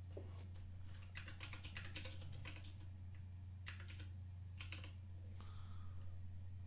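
Typing on a computer keyboard: a quick run of keystrokes about a second in, then two short bursts of keys near four and five seconds in, over a faint steady low hum.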